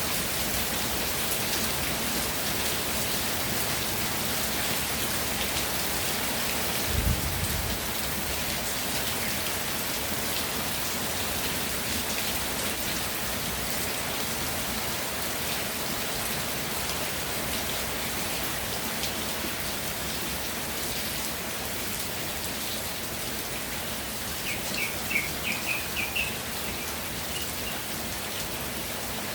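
Steady rainfall, an even hiss of raindrops. A brief low thud comes about a quarter of the way in, and a short run of high chirps comes near the end.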